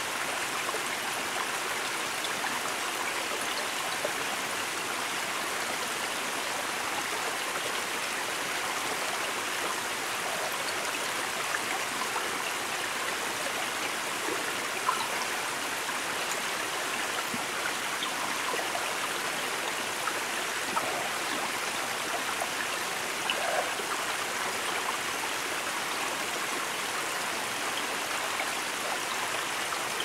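Small mountain creek cascading over mossy rocks in little falls: a steady rush of flowing water, with now and then a brief splash or drip standing out.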